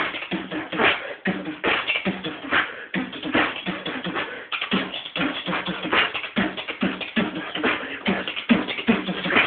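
Beatboxing: a fast, continuous run of percussive mouth sounds with short low hummed notes between the beats.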